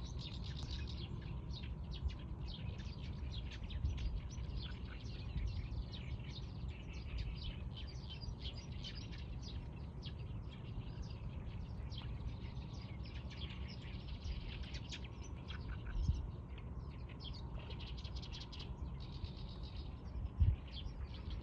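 Many small birds chirping in a continuous chatter of short, high chirps, over a steady low rumble. A brief thump comes near the end.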